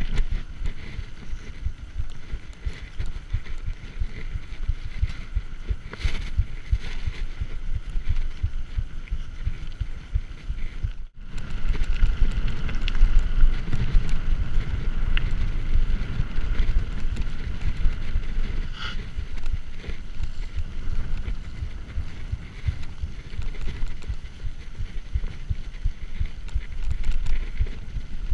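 Mountain bike ridden over a bumpy dirt track: tyres rumbling on the ground and the bike rattling over ruts, with wind on the microphone. The sound breaks off for an instant about eleven seconds in and comes back louder.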